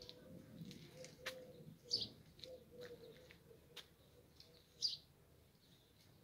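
A small songbird giving short, high chirps, two clear ones about three seconds apart, with a few faint clicks in between.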